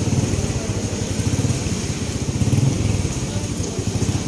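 A small engine running steadily, with a fast, even pulsing and a steady hiss over it.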